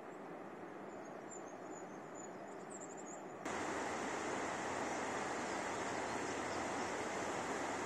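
Steady rushing of a mountain torrent, with a few faint high bird chirps over it at first. About three and a half seconds in the rush suddenly becomes louder and fuller and stays that way.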